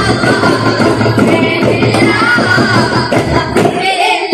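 Group of boys beating daf frame drums in quick rhythm while singing together in unison, a daf muttu performance. Near the end the drumming pauses briefly while the voices carry on.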